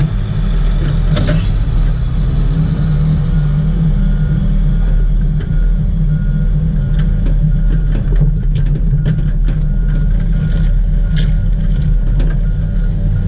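Komatsu PC70 hydraulic excavator's diesel engine running steadily at high level, with scattered clanks and knocks as the machine moves. From about a third of the way in, a faint beep repeats at a steady pace, like a travel or reversing alarm.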